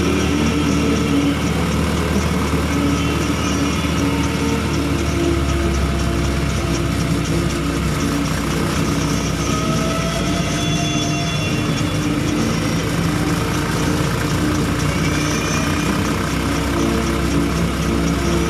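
Small single-cylinder Honda Supra Fit motorcycle engine running steadily while being ridden, over a constant haze of road noise.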